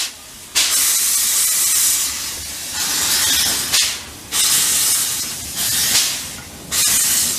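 Narrow-gauge steam locomotive working slowly, its steam hissing in long surges about once a second.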